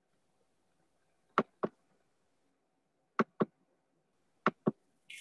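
Three evenly spaced pairs of short, sharp clicks over near silence, followed by a brief high hiss at the very end.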